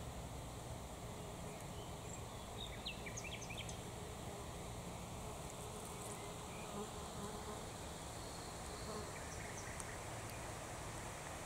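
A flying insect buzzing steadily, with a cluster of short high chirps about three seconds in and a few more near the end.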